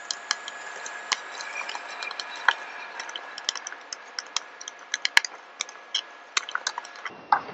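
Small irregular clicks and scrapes of a thin flat tool prying the old press-fit metal tuner bushings out of a Squier Mini's wooden headstock. A faint steady whine sits underneath and stops near the end.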